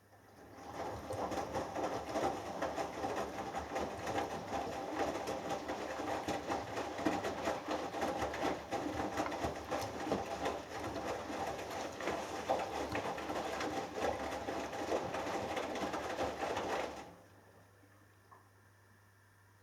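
Hoover Dynamic Next washing machine drum turning during the last rinse, with the wet 6 kg cotton load sloshing and tumbling in the rinse water. It builds up over about a second, runs for about sixteen seconds, then stops suddenly as the drum comes to rest between turns.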